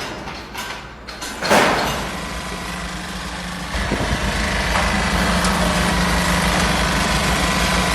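A machine's engine running steadily, getting louder about halfway through, after a short loud rushing burst about a second and a half in.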